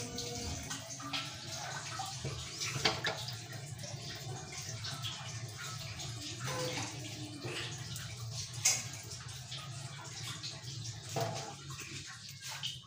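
Tap water running from a kitchen faucet into a stainless steel sink basin, with a few sharp knocks, the loudest about two-thirds of the way through. The running water stops near the end.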